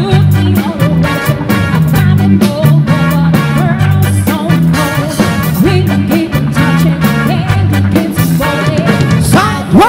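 Live band playing a medley of dance-floor pop songs: a steady bass line under drum kit, electric guitar and keyboard, with singing.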